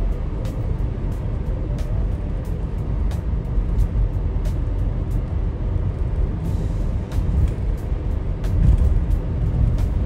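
Steady low road and engine rumble of a moving car heard from inside the cabin, with background music carrying a quick, even ticking beat over it.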